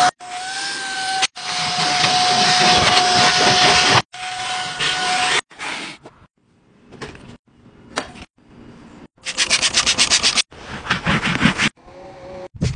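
Vacuum cleaner with a crevice tool running over a molded rubber floor liner: a steady whine with a hiss, cut into several short takes, for about the first five seconds. After that come short, quieter bursts of handling noise, including a fast rhythmic swishing of about nine strokes a second around nine seconds in.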